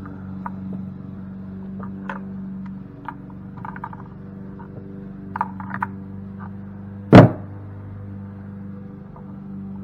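Scattered small clicks and clinks of hand tools and metal pump parts being handled, with one sharp, loud knock about seven seconds in, over a steady low hum.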